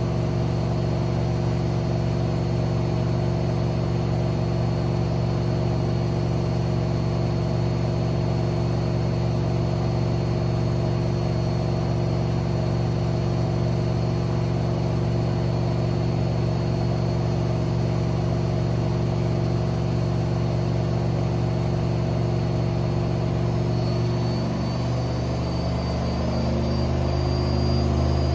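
AEG Lavamat 6610 washing machine running with a steady mechanical hum and whine from its motor and drum. About 24 seconds in the pitch of the tones shifts as the machine changes speed.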